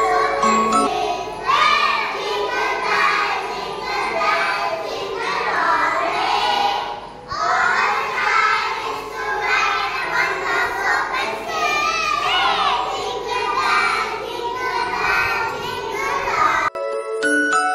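A group of young children singing together in unison. About a second before the end it cuts abruptly to bright, chiming music.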